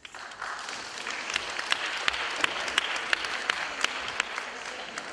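Audience applause breaks out and quickly swells into a dense patter. From about a second in, a few single claps stand out from it in an even beat, about three a second.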